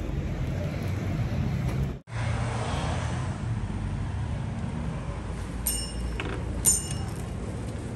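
Steady low background rumble, broken by a brief dropout about two seconds in. Later come two short, bright, high ringing sounds about a second apart, the second one louder, as a glass shop door is pulled open.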